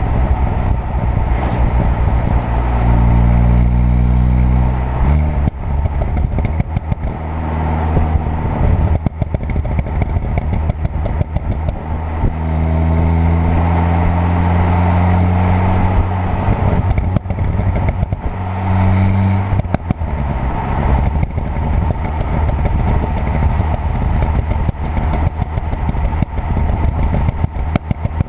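Tuned 2.0 TFSI turbocharged four-cylinder engine pulling in several short bursts of acceleration, its note rising each time, with popping and crackling from the exhaust on the overrun as the throttle closes, thickest in the second half.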